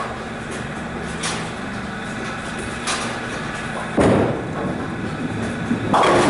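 A bowling ball rolls down the lane close by, starting with a sudden rumble about four seconds in, then hits the three standing pins near the end with a loud crash. Short knocks from other lanes come earlier.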